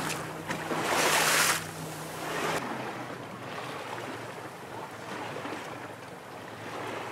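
Wind rushing over the microphone above open sea, with a loud gust about a second in. Under it runs a low steady hum that drops away about two and a half seconds in.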